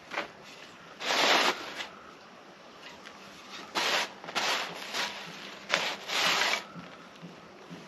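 Hands digging through potting soil from emptied potato grow bags: a series of about six short rustling scrapes.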